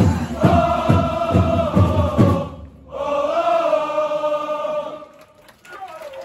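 A crowd of football supporters singing a chant in unison over a rhythmic beat. The singing breaks off briefly, then comes back as one long held phrase that fades about five seconds in.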